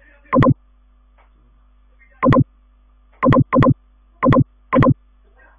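Short electronic computer alert beeps, six in about four and a half seconds, unevenly spaced (two close together near the middle): the alert sound a computer plays with an error dialog such as Illustrator's 'Can't make clipping mask' warning.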